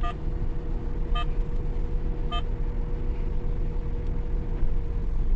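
Delivery van's engine running low, with a reversing warning beeper sounding three short beeps about a second apart as the van backs up.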